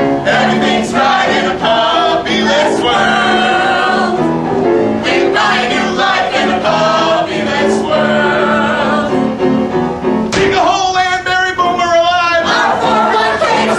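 A cast of voices singing a show tune with musical accompaniment. Near the end one long high note is held with a wide vibrato.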